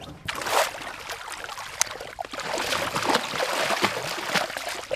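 A large lake trout thrashing and splashing at the water's surface beside a boat as it is scooped into a landing net. The splashing grows louder about halfway through.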